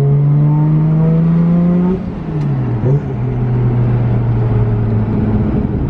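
Turbocharged car engine accelerating hard, its revs climbing steadily for about two seconds, then dropping away, with a brief sharp noise near three seconds in, before running on steadily at lower revs.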